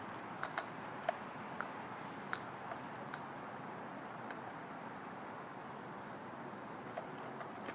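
Irregular small plastic clicks, most of them in the first three seconds and a few more later, from a NERF blaster being handled after it failed to work, over a faint steady hiss.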